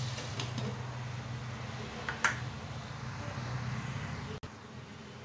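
Steady low hum with a light hiss as a covered pan of brinjal cooks on a gas burner, with one short click about two seconds in. The sound drops suddenly a little over four seconds in.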